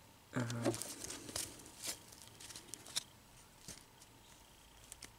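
Paper baseball cards being flipped and slid against one another in the hand, giving scattered light clicks and rustles. A brief hum from a man's voice about half a second in.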